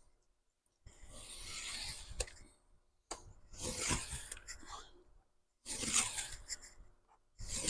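Three long scraping strokes of a craft knife drawn along a ruled line, scoring through a ring binder's board cover with repeated passes.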